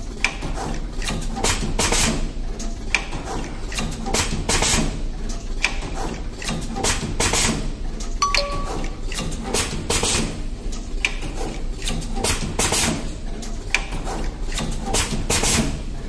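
Full-automatic wire stripping, crimping and tin-soldering machine cycling: its pneumatic cylinders and grippers make a fast, irregular run of short clacks and bursts, several a second, over a steady low hum.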